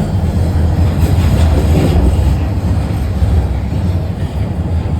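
TTC Line 1 subway train running through the tunnel, heard from inside the car: a loud, steady rumble of wheels on rails with a noisy rushing hiss over it, easing slightly in the second half.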